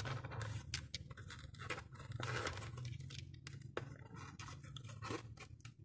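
Irregular scratching, scraping and small clicks of hands opening the packaging around a cleaned diesel injector and handling the part, over a faint steady low hum.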